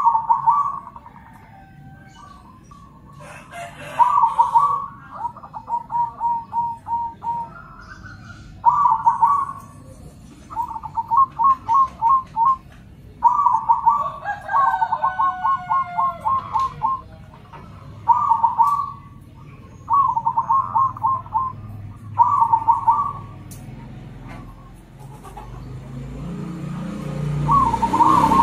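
Zebra doves (perkutut) singing in turn. Each phrase is a loud opening coo followed by a quick string of short clipped notes, repeated every few seconds. A low rumble swells near the end.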